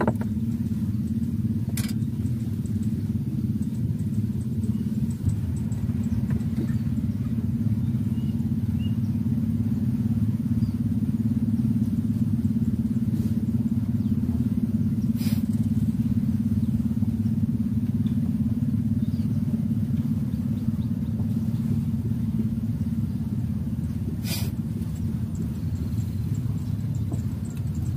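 A small engine running steadily with a low, even drone, and three faint sharp clicks over it.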